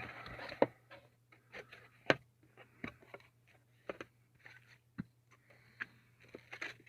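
Irregular light knocks, clicks and scrapes of an 8-inch shallow-mount subwoofer being handled and test-fitted into its mounting spot in the truck, over a faint steady low hum.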